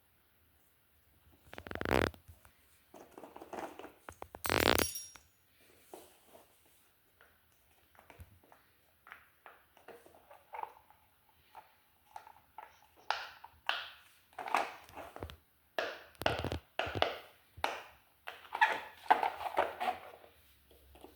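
Fidget toys being handled and played with: a series of irregular short noises. Two louder ones come in the first five seconds, and a quicker run of them near the end.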